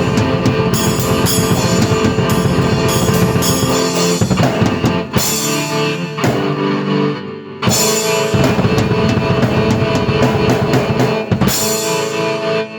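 Rock-style music on a drum kit with bass drum and cymbal crashes, played together with a keyboard; the music breaks off and starts to die away right at the end.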